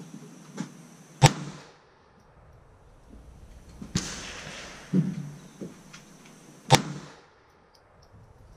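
Semi-automatic pistol fired three times, one shot every two and a half to three seconds. Each shot is a sharp crack with a short echo trailing after it.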